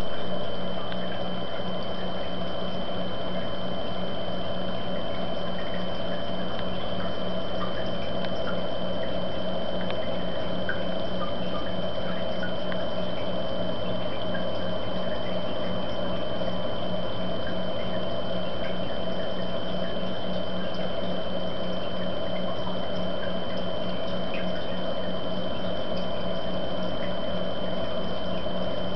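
Steady water noise in a home aquarium, with scattered small drip-like ticks, a constant high whine and a low hum.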